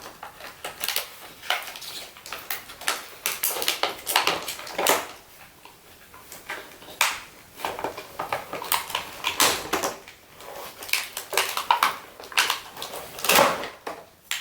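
Plastic toy packaging and small doll accessories being handled and pulled apart, giving irregular clicks, crackles and rattles.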